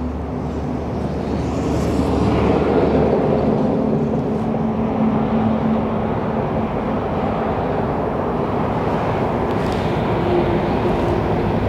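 Steady engine-like rumble of vehicle traffic, with faint held hums over it.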